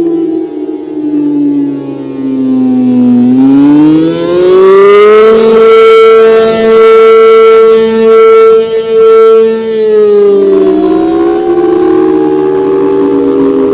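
ACA Allertor 125 outdoor warning siren, 8/12-port with two tones sounding together, giving the attack signal. Its pitch falls, climbs for about two seconds, holds high for several seconds while the loudness dips briefly a few times, then falls again near the end.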